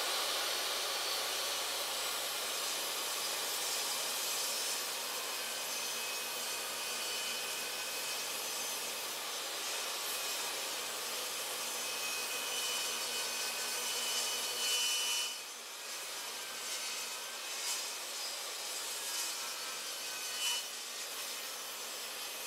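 DeWALT DWE7485 jobsite table saw running steadily and cutting through wood, throwing sawdust out of its dust port. The sound eases slightly about two thirds of the way through.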